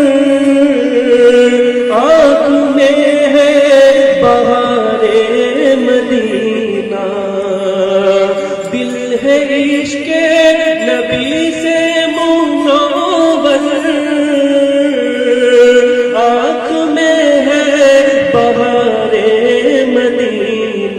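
Man singing an Urdu naat (Islamic devotional song), drawing out long, wavering held notes that carry no clear words.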